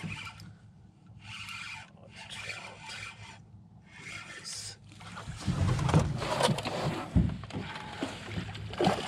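Spinning reel cranked in short spells as a hooked rainbow trout is reeled to the boat. From about five seconds in comes a louder, busier stretch of splashes and knocks as the fish is brought to the landing net.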